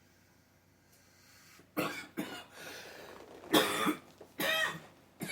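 A woman coughing several times, in short loud bursts beginning about two seconds in, with some throat clearing between the coughs.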